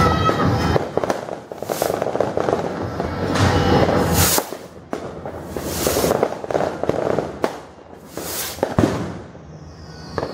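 Fireworks and firecrackers going off: repeated sharp bangs and dense crackling, with a short falling whistle near the end.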